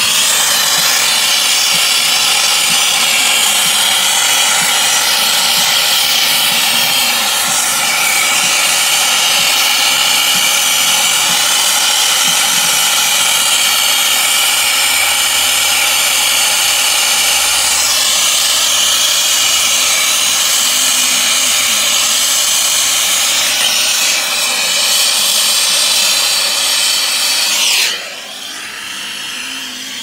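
Brazing torch flame running steadily and loudly while heating a copper refrigerant line joint. The flame sound drops away sharply about two seconds before the end.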